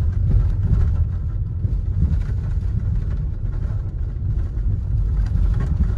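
Off-road vehicle driving over dirt, heard from on board: a steady low rumble of engine and tyres.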